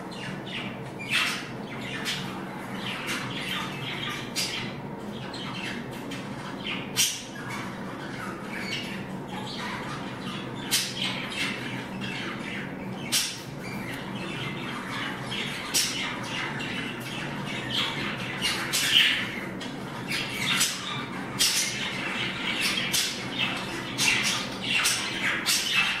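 A flock of budgerigars chattering continuously, with many short, sharp chirps and squawks overlapping one another, growing busier in the second half.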